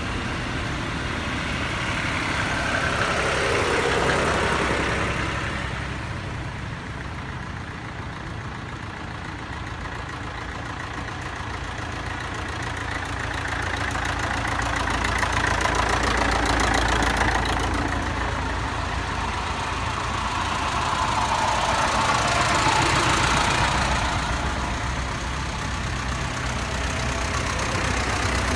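Vintage farm tractor engines running as a procession of old tractors drives past one after another. The loudness swells as each tractor nears and fades as it moves on, over a steady low engine rumble.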